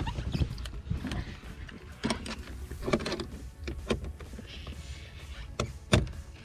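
Cordless drill-driver unscrewing screws from the Porsche Panamera's trunk side trim, with scattered clicks and knocks from the plastic trim and fittings.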